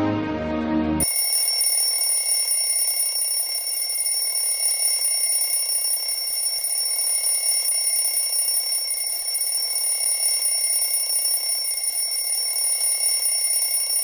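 Mobile phone ringing with a steady, high-pitched electronic tone, going on without a break and cutting off suddenly at the very end. Background music plays for about the first second before it.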